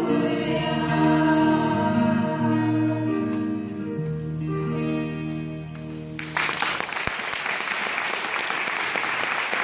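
Female vocal ensemble holding the final sung chords of the song, which stop about six seconds in, followed by audience applause.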